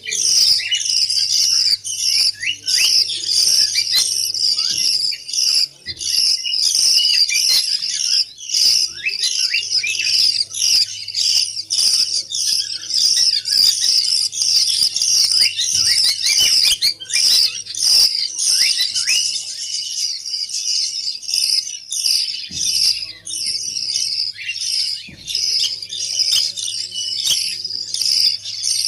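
Budgerigars chattering: a dense run of fast, overlapping high chirps and warbles with no pause.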